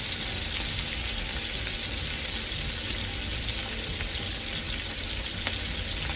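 Small chapila fish frying in hot mustard oil in a pan over medium heat: a steady sizzle with an occasional faint pop.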